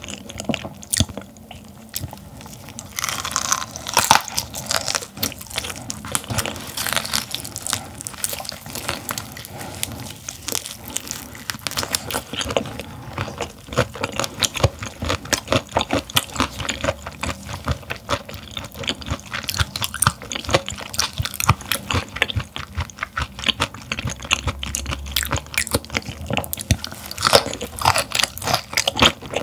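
Close-up chewing of raw gizzard shad, with dense crisp crunching and wet mouth sounds.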